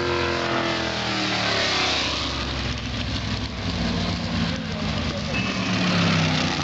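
Drag-strip race engines. One engine's pitch falls away over the first two seconds, then a lower engine note runs steadily and climbs slightly before the end.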